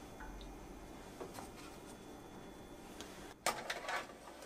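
Faint scraping and tapping as bread slices are settled on an oven's metal wire rack. About three and a half seconds in comes a loud rattling clatter of quick, sharp strokes as the wire rack is pushed into the toaster oven.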